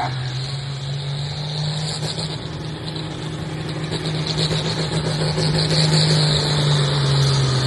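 A modified farm pulling tractor's diesel engine running hard at a steady pitch under load while pulling a weight sled, getting louder from about halfway through as it comes closer.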